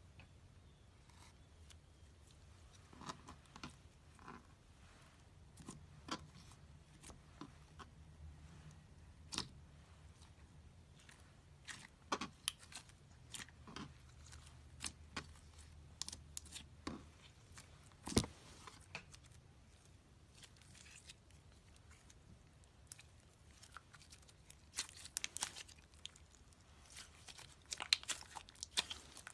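Hands working slime: scattered sticky pops and clicks, a few of them sharper, becoming a dense run of crackling near the end.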